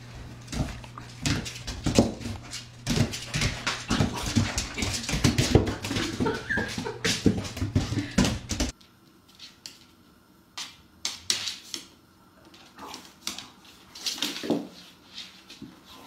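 A puppy whimpering and yipping as it plays, over many clicks and taps on a tile floor. It is busy and loud for the first half, then drops suddenly to a few scattered soft taps and short dog sounds.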